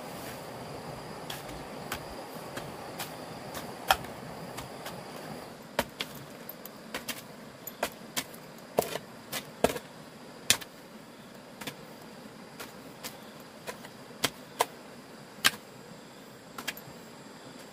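Irregular sharp taps and clicks, some much louder than others, over a steady background hiss; a thin high steady tone stops about five seconds in.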